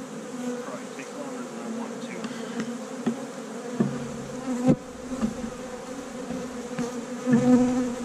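Steady buzzing hum of many honeybees in flight around hives being opened and moved, bees disturbed enough to be stinging. A few knocks of hive equipment being handled cut through it, the sharpest a little past halfway.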